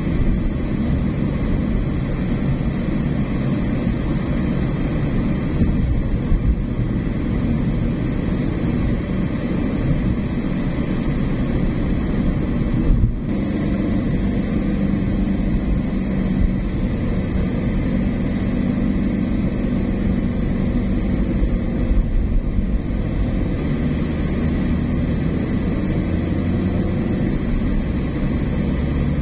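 Steady engine and road noise of a moving car, with a brief dip about 13 seconds in.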